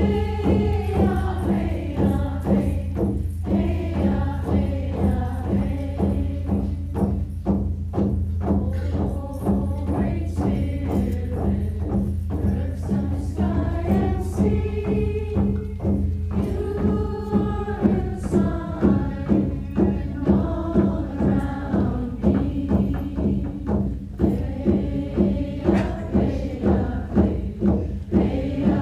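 Congregation and choir singing a hymn at Mass, over a low sustained accompaniment and a regular percussive beat.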